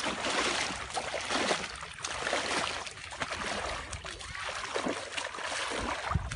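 Legs wading through shallow stream water, splashing and sloshing unevenly as the water is pushed aside with each stride.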